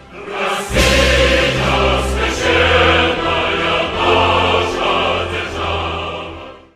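Choral music with orchestral accompaniment, a choir singing held notes over low bass, fading out near the end.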